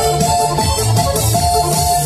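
Electronic music with a steady beat and held melody notes.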